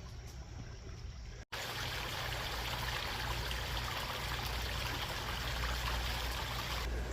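Rushing stream water, a steady even hiss. After a cut about a second and a half in, it is much louder and closer.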